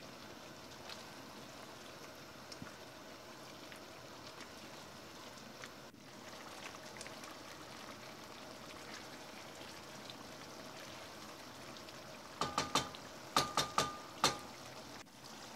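Curry cooking in an enamelled cast-iron pot, a faint steady sizzle and crackle. From about 12 seconds in come a few quick knocks and clinks of a wooden spatula against the pot.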